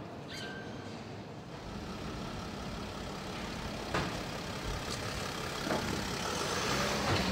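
Mercedes-Benz Sprinter van's engine running as the finished van drives off the end of the assembly line, the hum building about a second and a half in, with a few sharp clicks and knocks.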